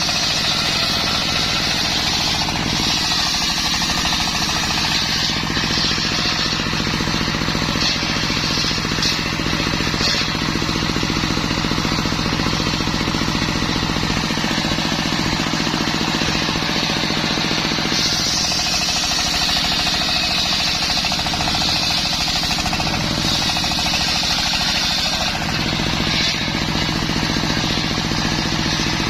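Circular saw machine running steadily with a low hum, its blade ripping through waru wood in stretches that add a high, hissing cutting sound: at the start, again around the middle-early part, and for several seconds later on.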